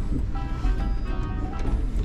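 Background music with held notes, over the steady low rumble of a moving sleeper train.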